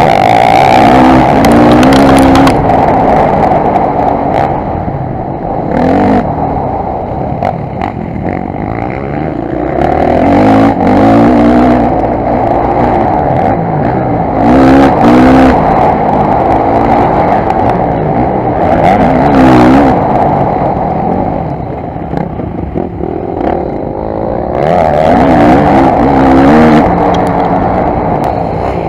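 Dirt bike engine running hard under the rider, revving up and dropping back again and again as it accelerates and shifts along the dirt track.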